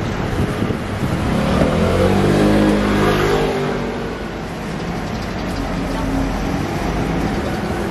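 Street traffic noise, with a motor vehicle's engine passing by; it is loudest about two to three seconds in and fades by the middle.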